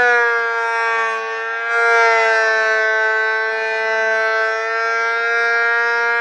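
Delta 22-540 12-inch portable planer running under load as a board feeds through the cutterhead: a loud, steady, high motor whine, dipping briefly about a second in and swelling again just under two seconds in.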